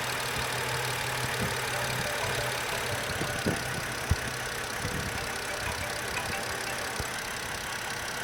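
2007 BMW 530i's inline-six idling rough, heard from the open engine bay, with two sharp knocks about halfway through. The rough idle comes with lean codes on both banks.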